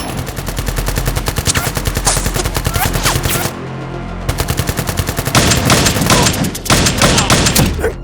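Rapid automatic gunfire in two long, fast bursts over background music, the first stopping about three and a half seconds in and the second starting about two seconds later.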